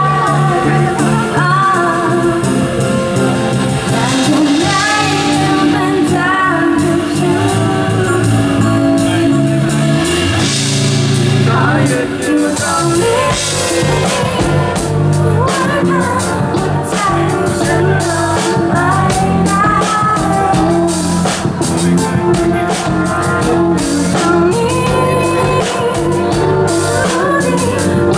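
A woman singing a Thai pop song live with a band, with electric bass and drums under her voice.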